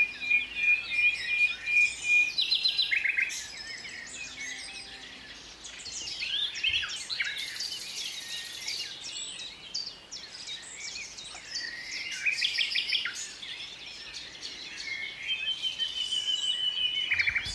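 Several songbirds singing at once, a chorus of overlapping chirps and trills, with runs of rapid repeated notes at the start and again near the end.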